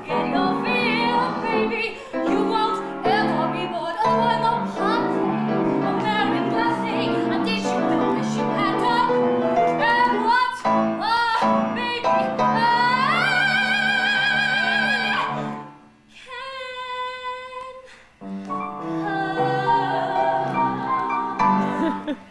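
A woman sings a Broadway show tune in a full, operatic voice over live piano accompaniment. About two-thirds of the way through she glides up to a long high note with vibrato, and piano chords carry the song toward its close.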